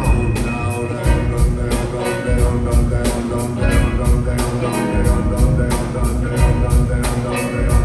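Live band music with no singing: a steady drum beat with a heavy bass line underneath.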